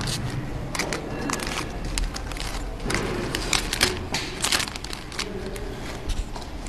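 Clear plastic flow-wrap bags around packed wall sockets crinkling and crackling as they are handled and stacked, in many short irregular clicks, over a low steady hum.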